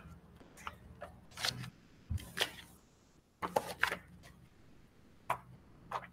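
Faint scattered clicks and brief rustles of handling noise near the microphone, about a dozen short sounds, over a low hum.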